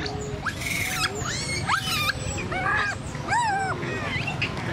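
Long-tailed macaques giving a stream of short, high squealing calls, each rising and falling in pitch, several a second and often overlapping.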